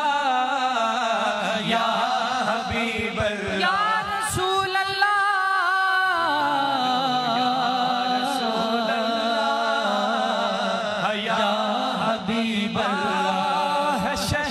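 Naat singing without words: long, wavering held vocal notes drawn out between verses over a steady vocal hum.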